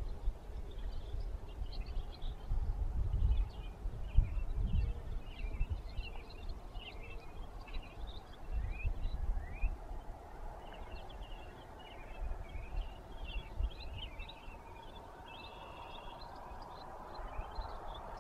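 Several small birds calling and singing, with many short high notes scattered throughout. Low rumbling bursts on the microphone come twice, and a faint hum swells near the end.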